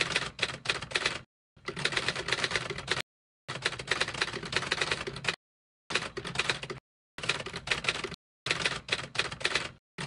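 Typewriter keys clacking in rapid runs of about one to two seconds, six in a row, each broken off by a brief silence, with another run starting at the end.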